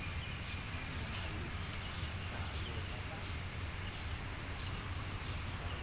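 Birds chirping, short high calls repeating two or three times a second, over a steady low rumble.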